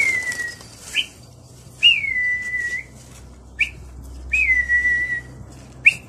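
A person whistling sharply: three drawn-out whistles, each starting high and dropping to a held note for about a second, with short upward chirps between them. It is the keeper's whistle that drives a pigeon flock up to fly.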